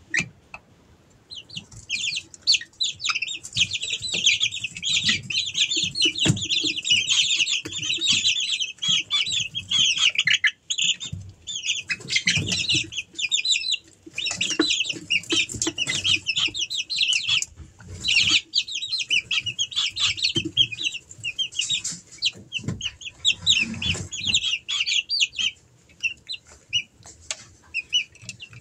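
A brood of month-old Easter Egger chicks cheeping together: a dense chatter of rapid, short, high-pitched peeps from many birds at once, starting about a second in and breaking off in a few brief lulls. Soft knocks and rustling sit underneath.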